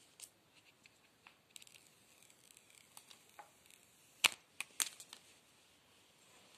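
Light rustling and small clicks of the packaging as a new iPhone is lifted out of its box and its wrapping handled. Two sharper clicks about half a second apart, a little past the middle, are the loudest sounds.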